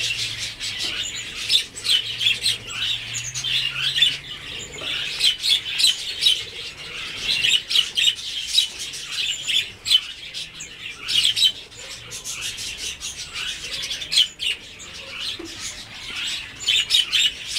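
Blue whistling thrush giving a rapid, continuous run of short high chirps and clicks, many a second, with a few brief gaps.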